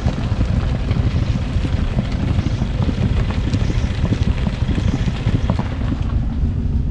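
A vehicle driving over a rough, stony road, with steady rumble, rattling and small irregular knocks and wind buffeting the microphone, while rolling on a tyre that has just burst.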